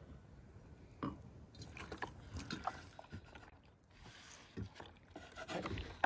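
Hands wrapping pieces of raw liver in caul fat on a wooden cutting board: irregular soft clicks and rustles of the moist meat and fat, starting about a second in.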